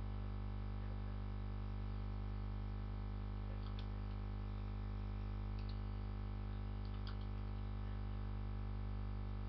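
Steady low electrical buzzing hum from the recording setup, with a few faint computer-keyboard clicks as coordinate values are typed in.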